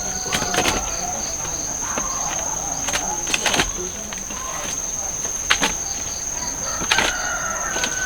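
A steady, high-pitched insect drone, crickets, runs throughout. A few short sharp knocks or cracks stand out over it, the strongest about three and a half and seven seconds in.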